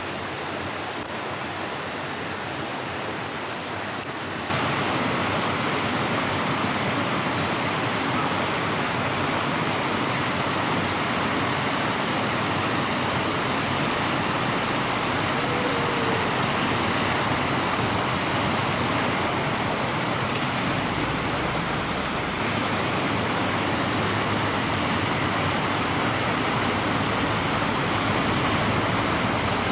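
Creek water rushing in a steady, even noise. It steps up louder about four and a half seconds in and changes slightly again about two-thirds of the way through.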